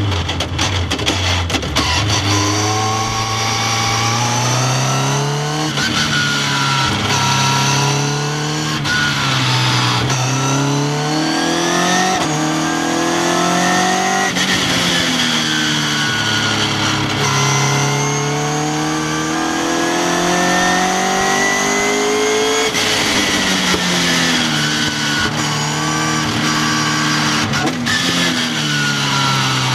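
Westfield sports car's engine driven hard on a race circuit, heard from onboard the open cockpit: the engine note climbs through the revs, drops back at each gearchange or lift for a corner, and climbs again, over and over.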